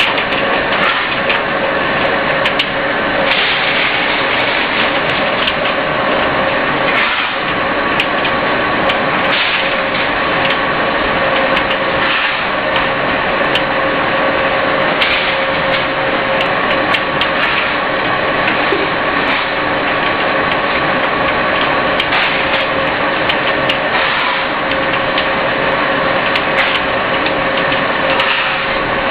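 350-model flat-die wood pellet mill running under load: a loud, steady mechanical din with a constant hum, and scattered sharp clicks as the fresh sawdust pellets stream out of the discharge chute.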